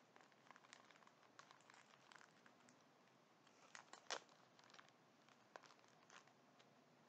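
Near silence with scattered faint clicks and crackles, the sharpest about four seconds in.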